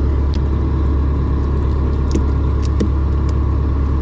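A steady low mechanical hum, like an engine or generator running, with a few faint light clicks over it.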